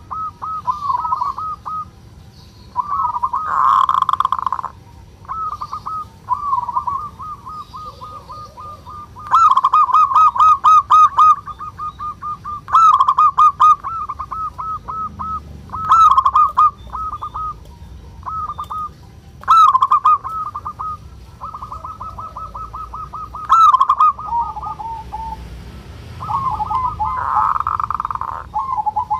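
Zebra dove (perkutut) giving its rattling 'kerot' call, the ngerot of a male in breeding condition: runs of quick staccato notes repeated in bouts with short pauses, several of them louder.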